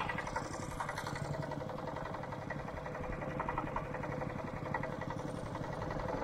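Small outboard engine on a wooden canoe running steadily at a constant speed, pushing the boat along.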